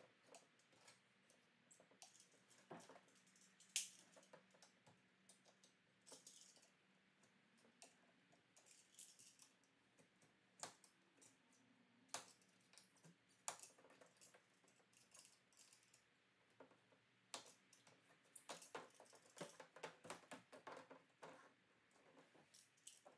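Faint, irregular clicks and scrapes of a razor blade being dragged along the old rubber weather seal of a tailgate window as the seal is pulled back and cut away from the glass, with one sharper click about four seconds in.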